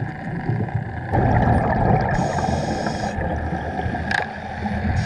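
Underwater sound picked up by a diver's camera: a low rumbling wash of water and bubbles that grows louder about a second in, with a short hiss a little after two seconds and a single click near the end.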